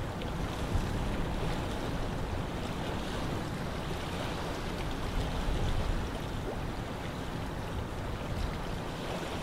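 Strong wind buffeting the microphone: a steady rushing noise over a rough, fluttering low rumble.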